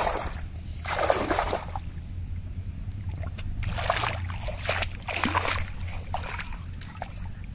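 Water splashing in shallow muddy water as hands grab a fish inside a bamboo polo fish trap, in about five irregular splashes of a second or less, over a steady low hum.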